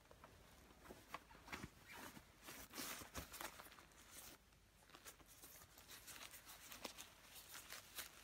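Faint rustling and crinkling of a down top quilt's thin ripstop shell fabric being handled by hand, with scattered small clicks and taps.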